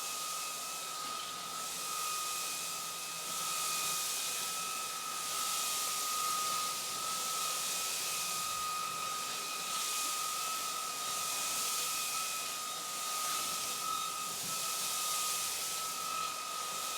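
Cordless stick vacuum running on turbo mode, its motor giving a steady high whine over a rush of suction air. The rushing rises and falls every couple of seconds.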